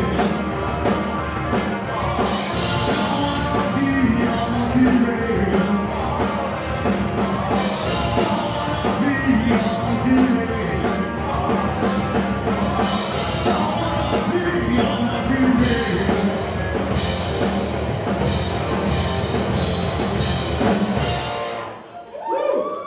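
Live rock band playing loud distorted electric guitars, bass and a drum kit with a sung vocal line. The song stops suddenly about 21 seconds in.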